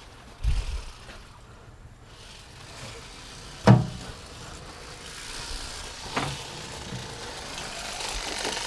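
Knocks and thumps of crappie and hands against a stainless-steel fish box as the fish are sorted: a dull thump near the start, one sharp ringing knock a little before the middle, and a smaller knock later, over a low steady rumble.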